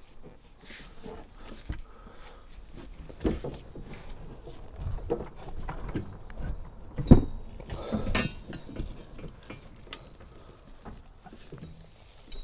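Scattered knocks and clinks of tools and fittings being handled, with the sharpest knock about seven seconds in.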